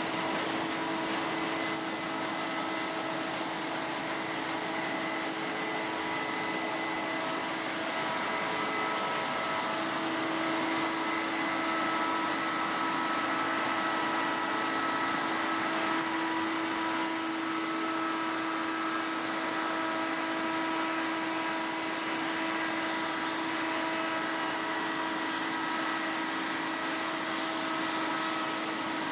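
Case combine harvester running steadily while harvesting barley: a continuous mechanical hum with a few steady whining tones over it.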